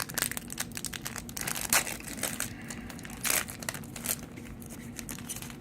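Trading cards and their foil pack wrapper being handled: irregular rustling, crinkling and short sliding swipes as the cards are flipped through, with a few louder swipes.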